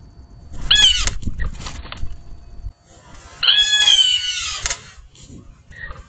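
Blue jay giving two harsh jeer calls: a short one about a second in, and a longer one that falls slightly in pitch near the fourth second.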